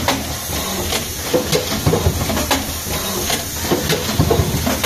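Automatic plastic-card hot stamping machine running: its mechanism clacks and knocks about once or twice a second over a steady hiss.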